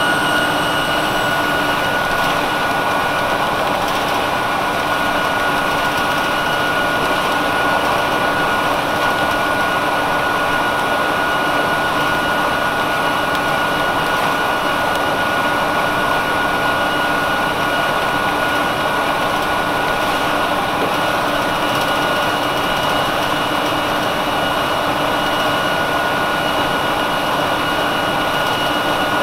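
1999 Nova Bus RTS-06 transit bus with its Detroit Diesel Series 50 engine running steadily, a constant high whine over even engine noise, with no rise or fall in pitch.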